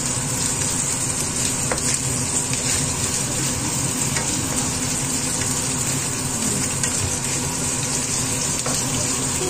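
Cubes of fatty meat sizzling steadily in hot oil in a nonstick frying pan, with a spatula stirring them and clicking against the pan now and then. The fat is being rendered out of the meat.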